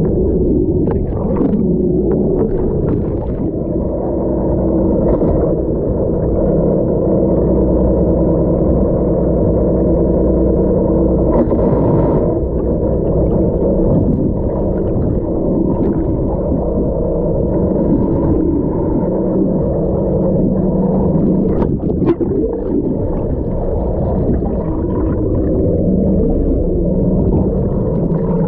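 Boat engine running, heard underwater as a steady, muffled low drone of several held tones, with a few short knocks, one near the middle and one about three-quarters through.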